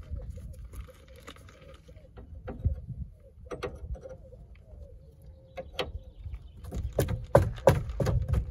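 Steel open-ended spanner clicking and knocking against the lock nut of a Ford Fiesta Mk7 track rod end as the nut is nipped up to hold the tracking. The knocks are scattered, with a quick cluster of louder strikes a little before the end.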